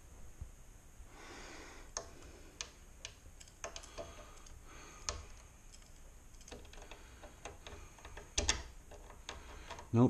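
Faint, irregular metal clicks and taps of a socket and ratchet being fitted onto a bolt of a garage door opener, with one louder knock about eight and a half seconds in.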